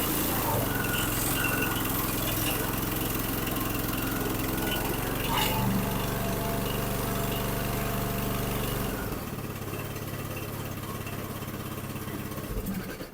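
Snapper 150Z zero-turn mower's 21-horsepower engine running steadily after starting on a spray of carburetor cleaner in the intake, a sign that it is not getting fuel on its own. About nine seconds in the steady engine note drops away and the sound goes quieter.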